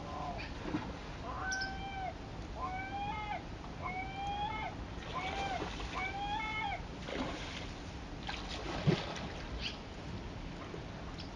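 An animal calling: a run of about six clear, arching calls, each about half a second long and about a second apart, over a steady rushing background. A single sharp thump comes near the end.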